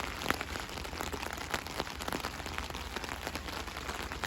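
Rain falling steadily, with many small drops ticking on a surface.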